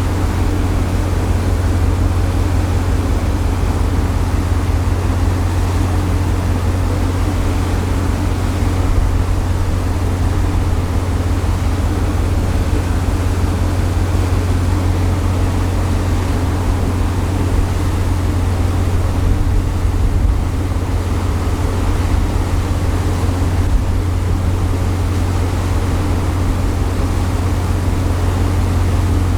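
Steady low drone of the cargo-passenger ship Hahajima Maru's engines heard on board, under an even hiss of wind and water.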